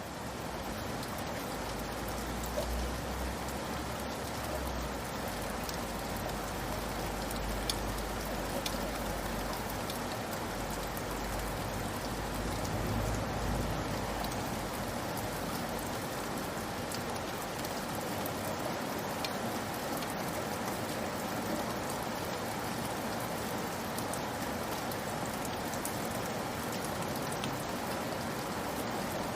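Steady rain falling, an even hiss with scattered drops pattering. A low rumble sits under it for roughly the first half and then fades away.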